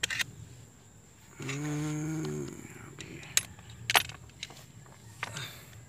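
Sharp metallic clinks and taps of a steel screwdriver against the planetary gears and ring gear of an opened travel motor final drive: a handful of separate clicks, the loudest about four seconds in. A short hum of a man's voice comes about a second and a half in.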